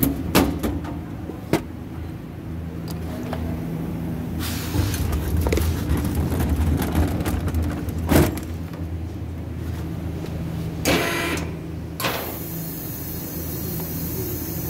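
A steady low machine hum with scattered knocks and handling noises, and a steady hiss that starts about twelve seconds in.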